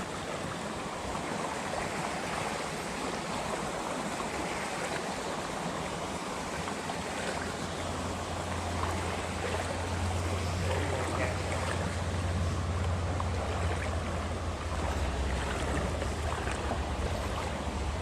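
Steady rush of river water flowing over rocks, an even wash of noise. About halfway through a low rumble joins it and holds.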